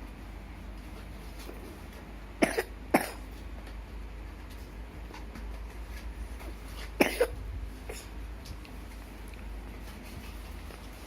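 Three short, sharp coughs, the sick coughing of a flu or cold. Two come about half a second apart at about two and a half seconds in, and a third comes about seven seconds in.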